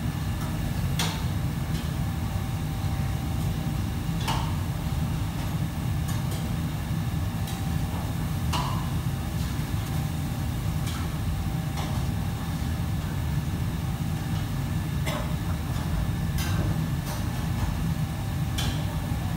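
Busy commercial kitchen: a steady low rumble of machinery with about ten sharp metallic clinks at irregular moments, as utensils strike steel pots and bowls, a few of them ringing briefly.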